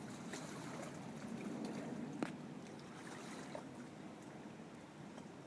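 Hudson River water sloshing and splashing in a low, steady wash, with small scattered splashes and one sharp click a little over two seconds in.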